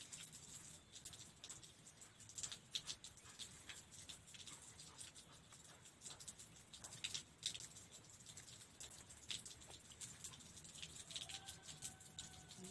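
Near silence with faint, irregular light clicks and taps scattered throughout.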